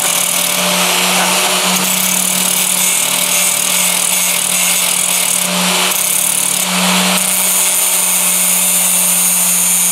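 Angle grinder running at full speed with a steel knife blade pressed onto its spinning abrasive disc, grinding the steel away: a steady motor hum under a harsh grinding hiss, growing harsher twice in the second half as the blade bites.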